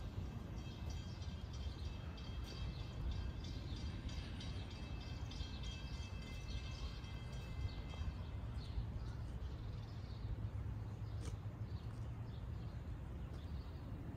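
Outdoor ambience of birds chirping over a steady low rumble, with a faint steady high ringing that fades out about halfway through.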